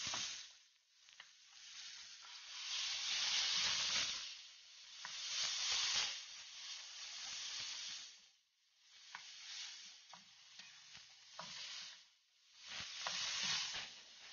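Tomatoes, onions and ground meat sizzling in an aluminium wok while a wooden spatula stirs them. The sizzle swells and fades in waves, with occasional light ticks of the spatula against the pan.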